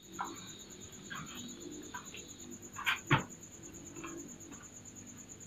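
Domestic pigeons cooing faintly in their cages over a steady high-pitched insect trill, with two short knocks about three seconds in.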